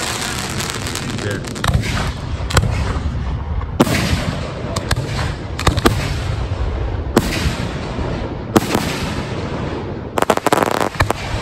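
Fireworks display: aerial shells bursting one after another, a sharp bang about every second, with a quick run of crackling bangs near the end.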